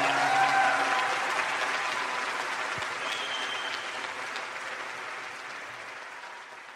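Concert audience applauding after a song, the applause slowly fading out.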